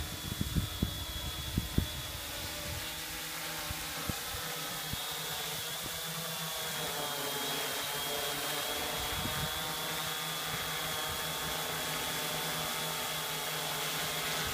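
Hexacopter's six electric motors and propellers buzzing steadily in flight, with a thin high whine over the hum. Low buffeting thumps on the microphone in the first two seconds.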